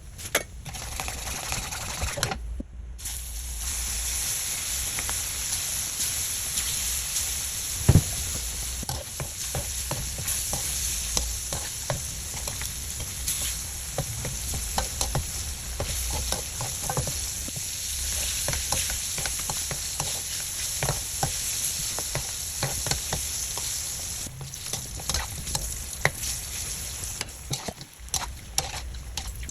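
Catfish frying in hot oil: a steady sizzle, with scattered clicks and knocks of a utensil against the pan and one sharp knock about eight seconds in.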